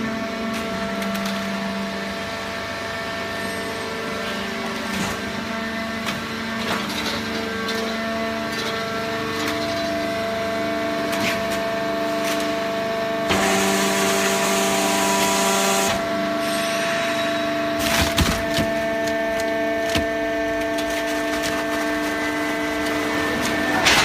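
Hydraulic horizontal baling press running on waste newspaper: a steady hum of several tones that shift now and then, with scattered clicks and cracks. A hissing rush lasts about three seconds just past the middle, followed by a few sharp knocks.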